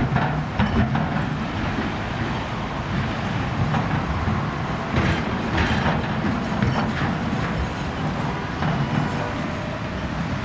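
A lashup of Russian diesel locomotives (2TE116U, TEP70BS and 2TE116) running under power on approach, a steady low engine sound with wheel and track noise, until a locomotive passes close by near the end.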